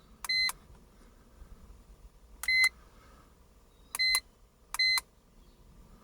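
Handheld OBD2 diagnostic scanner (iCarsoft LR V2.0) beeping as its keys are pressed while scrolling through fault-code menus: four short single-pitch beeps, the last two close together.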